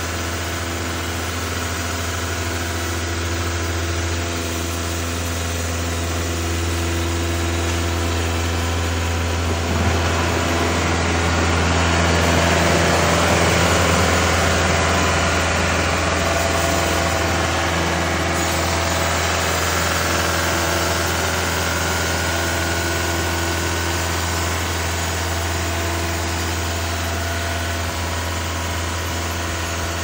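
Cook's AC-3667T band sawmill running with a steady mechanical hum. From about ten seconds in, the band blade cutting through the oak cant adds a louder hiss that peaks a few seconds later and fades out by about twenty seconds.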